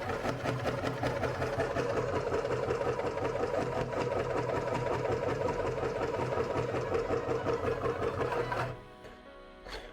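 Electric meat grinder motor running steadily while grinding ice cream, then cutting off near the end.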